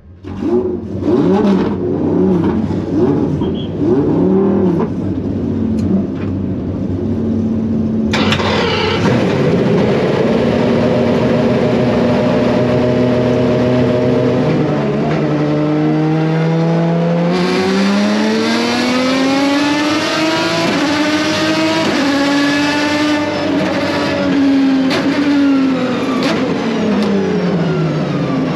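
A race car engine is blipped several times, then runs at a steady pitch. It revs up in one long, smooth climb, holds, and drops back near the end.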